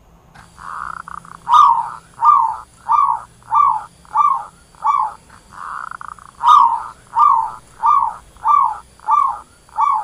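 Zebra dove calling: twice, a soft rolling trill of about a second followed by a run of six falling coos, evenly spaced.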